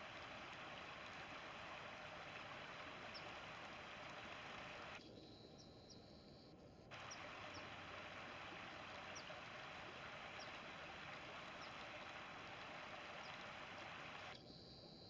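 Faint, steady rushing of a shallow river. It drops away for about two seconds a third of the way in. A few faint, short, high chirps are scattered through it.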